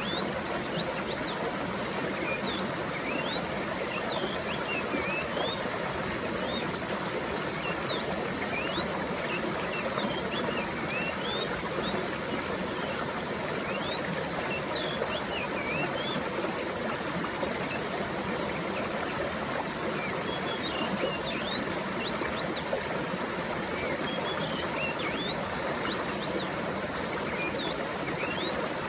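Water running steadily, like a mountain stream, with many short, high bird chirps dotted throughout.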